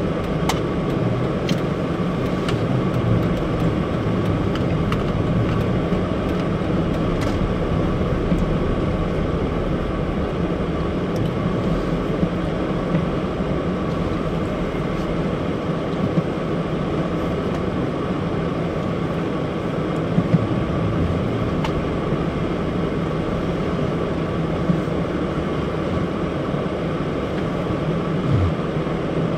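Car driving, heard from inside the cabin: steady engine and tyre noise, with a few faint clicks.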